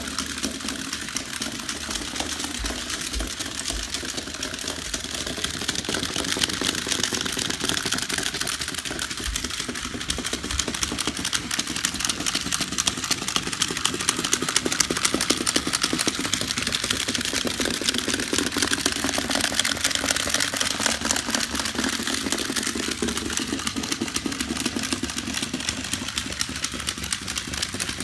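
Battery-powered Chubby Puppies toy dogs waddling across a tile floor: small motors whirring steadily with a fast, dense clicking from the moving plastic legs and gears.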